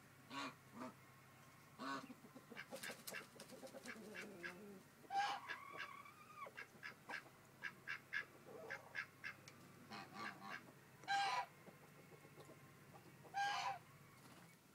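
Geese honking in short calls, the loudest three about five, eleven and thirteen seconds in, with softer short calls and clicks scattered between.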